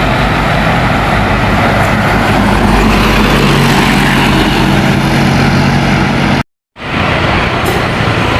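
Diesel engine of a large tour bus running loud close by, with tyre and road noise. The sound cuts out for a moment about six and a half seconds in, then carries on.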